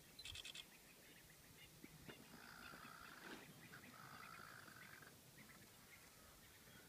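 Faint animal calls: a quick rattle of high clicks just after the start, then two drawn-out calls of about a second each in the middle.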